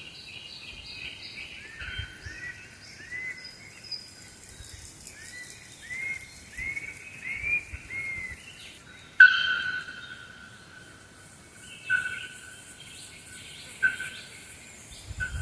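Forest birdsong: a bird repeats short arched whistled notes about every half second, growing louder. A sharper, louder call comes in about nine seconds in, followed by a few more scattered calls, over a faint high hiss.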